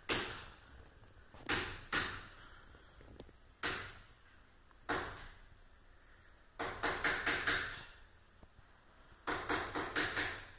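A series of sharp knocks, each ringing out briefly: single ones spaced a second or more apart, then two quick runs of about five.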